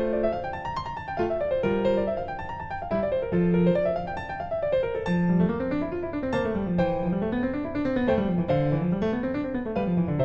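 Background piano music: quick rising and falling arpeggios played in a steady pattern.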